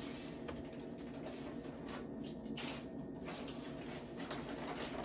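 Faint soft tearing and rustling of ripe banana peels being pulled off by hand, over a low steady hum.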